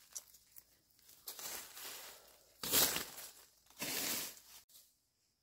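Dry leaf litter and loose soil crunching and scraping on a forest floor: three rough scrapes about a second apart, the middle one loudest. The sound cuts off suddenly near the end.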